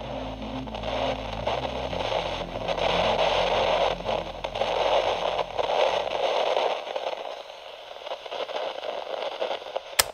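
Loud crackling static, swelling and ebbing in waves, over electronic outro music whose low synth notes fade out about two-thirds of the way through. A sharp click comes near the end.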